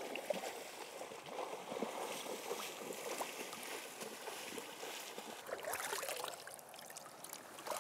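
Shallow river water splashing and trickling around hands holding an Atlantic salmon in the current as it is revived and let go.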